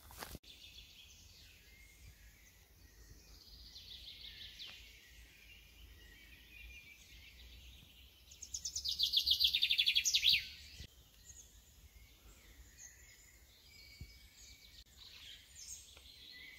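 Woodland songbirds singing, with the loudest a rapid trill of repeated notes that falls in pitch for about two seconds, near the middle.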